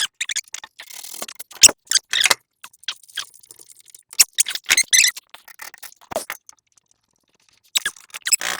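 Small metal door latch being handled and fitted onto a wooden coop door, giving irregular clicks, light rattles and scrapes. The sounds pause for about a second near the end, then a few more clicks follow.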